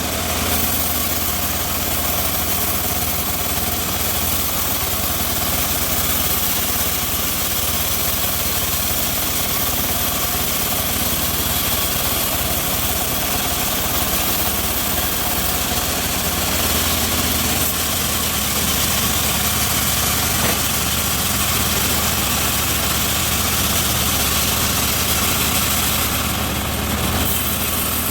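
Home-built bandsaw mill running steadily, a continuous machine drone with hiss that does not change.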